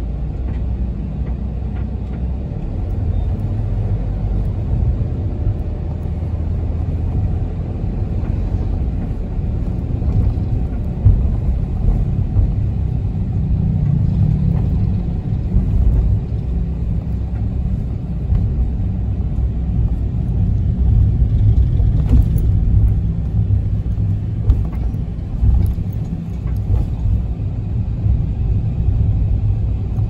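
Cabin running sound of a Toyota HiAce minibus (GDH223B, 2.8 L diesel) on the move: a steady engine and road rumble that swells and eases with the driving.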